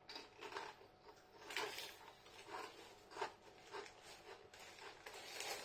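Someone chewing corn tortilla chips, a faint, muffled crunch about twice a second; the chips are a little soft and not as crunchy as they should be.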